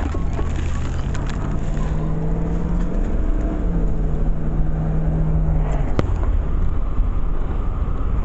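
Car engine running with a steady low road rumble, heard from inside the car. The engine hum steps up slightly in pitch about halfway through and fades out, and a single sharp click comes about six seconds in.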